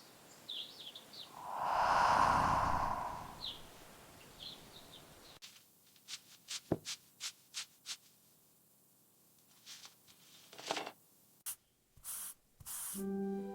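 Faint ambience with a few short bird chirps and a soft rushing swell of noise about two seconds in. A quick run of sharp clicks follows midway, and music comes in near the end.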